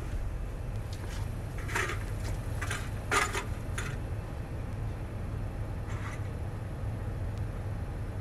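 A few short knocks and rustles inside a pickup truck's cabin, the loudest about three seconds in, over a steady low rumble.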